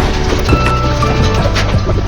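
Background music with held melodic notes, a steady bass and a regular percussive beat.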